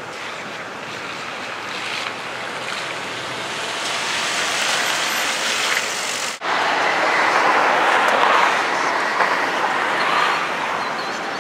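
Wind blowing hard and steadily near a large tornado, a rushing noise that grows louder, with a sudden brief dropout about six seconds in.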